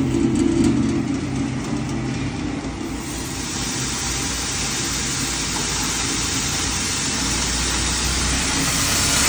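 Electric-motor-driven grinder mill running steadily, making rice granules; about three seconds in a loud, even hiss joins as rice is fed into the hopper and ground, and it carries on.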